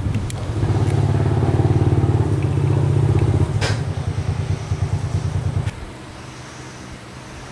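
Single-cylinder four-stroke motorbike engine running with fast, even firing pulses, swelling slightly about half a second in, then cutting off abruptly near the end. A single sharp click comes around the middle.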